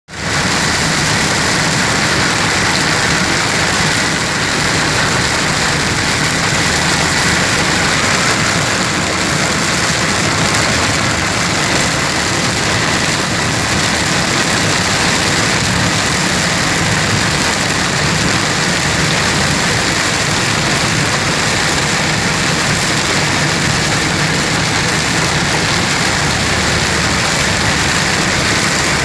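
Heavy rain falling steadily, a continuous even hiss with a faint low hum underneath.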